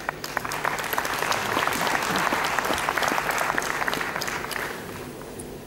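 Audience applauding in a large hall, swelling and then dying away about five seconds in.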